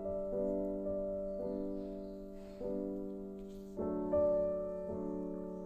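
Background piano-like keyboard music: soft chords struck about once a second, each fading before the next.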